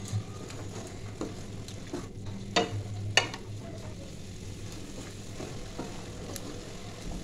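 A wooden spatula stirs vermicelli and vegetables in an aluminium kadai, scraping and knocking against the pan a few times, mostly in the first half. Under it the mix sizzles steadily as it cooks in a little water that the vermicelli is soaking up.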